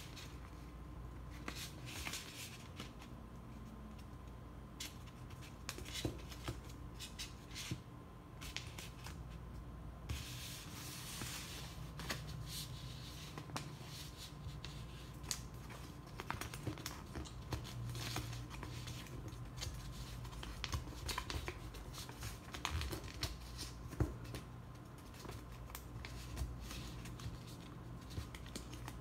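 A sheet of paper being folded and creased by hand: rustling and crinkling, with many short scrapes and taps as fingers press and run along the folds, busiest around the middle.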